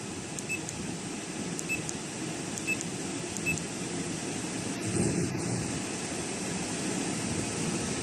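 A 12 V parking air conditioner runs in automatic mode with its fan on the third speed, giving a steady blowing hum. A few faint, short, high tones sound in the first few seconds.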